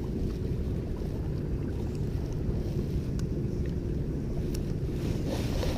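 Steady low rumble of a fishing boat's motor running, mixed with wind buffeting the microphone, and a few faint ticks.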